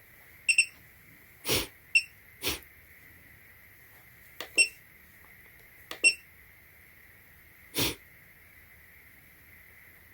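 A bench power supply's buzzer gives short electronic beeps, about four spread over the stretch, as its encoder knob and buttons are worked to raise the voltage. Three short dull knocks come in between.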